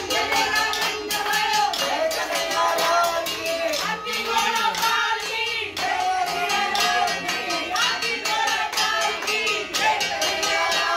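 Music: a voice singing over a steady rhythmic percussion beat.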